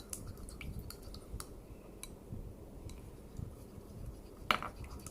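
Faint clicks and scrapes of a utensil stirring a mixture in a container, with one louder scrape about four and a half seconds in.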